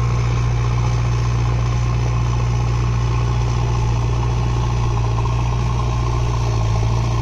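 JCB backhoe loader's diesel engine running steadily at a constant speed, dropping slightly in pitch near the end.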